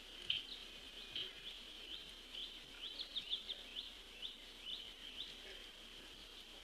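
Wild birds calling outdoors: about a dozen short, high, upward-sweeping chirps, irregularly spaced and bunched together about three seconds in, over a steady faint high-pitched background drone.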